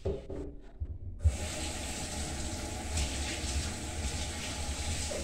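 Water running steadily from a tap, starting abruptly with a thump about a second in.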